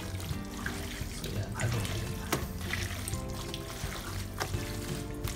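Raw chicken skin being mixed with salt in a bowl: irregular wet squelching and slapping, over background music.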